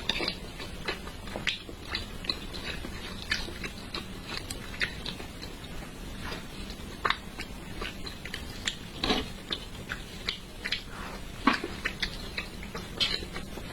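A person eating red-braised carp close to the microphone: chewing with wet mouth clicks and lip smacks at an irregular pace, a few of them louder.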